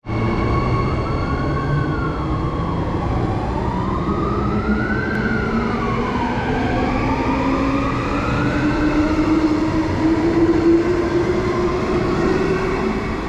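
Transperth B-series electric multiple unit running past along the platform, its traction motor whine climbing slowly in pitch as it gathers speed, over the rumble of wheels on rail. A siren-like wail rises and falls every few seconds behind it.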